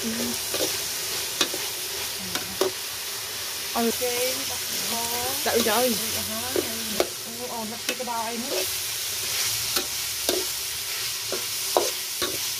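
Minced chicken sizzling in sauce in a wok as a spatula stirs it, with repeated scrapes and clicks of the spatula against the pan. A wavering pitched sound rises and falls in the background from about four to eight and a half seconds in.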